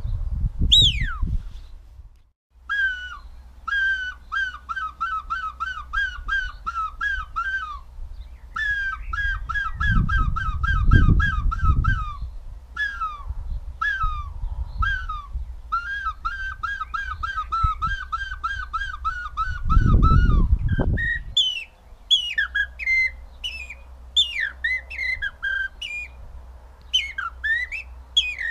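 Finger-whistled bird imitations. A falling whistle imitating a Eurasian wigeon comes at the start. Then long runs of quick repeated notes, about three a second, imitate a herring gull's call, and near the end quick varied falling whistles imitate a common blackbird's song. Two spells of low rumble sound on the microphone partway through.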